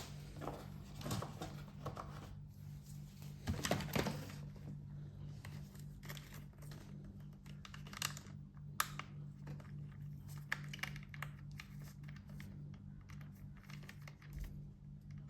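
Faint clicks, taps and rattles of plastic robot-vacuum parts being handled during disassembly, over a steady low hum.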